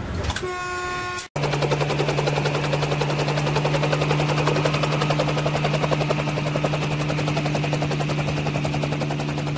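Brief horn-like tone that cuts off about a second in. Then an electric multiple-unit train passes close at speed, with a steady low hum and a fast, even throbbing.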